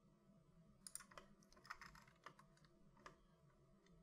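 A few faint, scattered clicks of a computer keyboard and mouse, keystroke shortcuts and button presses, over quiet room tone.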